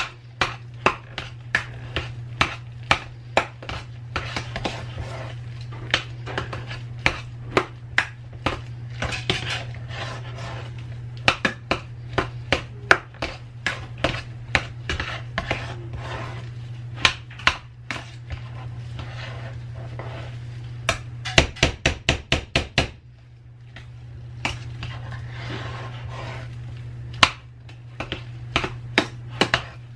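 Metal utensil mashing and mixing potatoes in a stainless steel pot, knocking and scraping against the pot in repeated clinks, with a quick run of fast knocks a little past two-thirds of the way in. A steady low hum runs underneath, dropping out briefly after the fast knocks.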